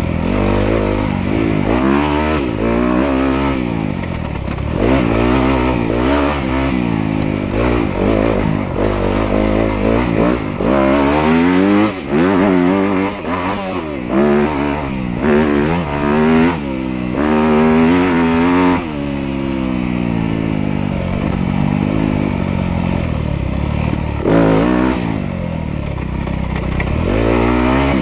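Dirt bike engine being ridden hard, revving up and down again and again as the throttle opens and closes, its pitch climbing and dropping with each rev. It settles to a steadier, lower drone for a few seconds past the middle before revving up again near the end.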